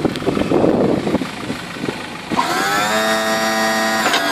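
A clattery rumble for the first second or so. Then a small electric motor, most likely the plough's electro-hydraulic pump, spins up in a rising whine, runs at a steady pitch for about a second and a half, and cuts off sharply.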